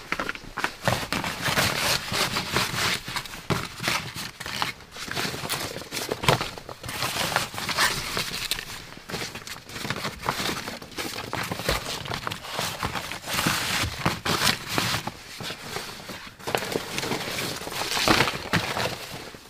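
Large fresh green leaves rustling and crinkling as they are handled and laid flat onto a bed frame of log poles, with scattered light knocks of wood.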